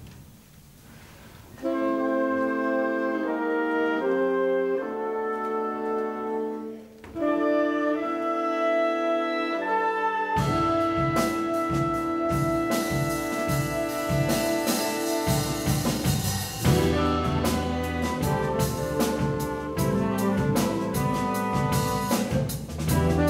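Concert wind band with a jazz rhythm section playing: about two seconds in, saxophones, clarinets and brass begin with held chords, and about ten seconds in the drum kit and electric bass come in under the full band with a steady beat.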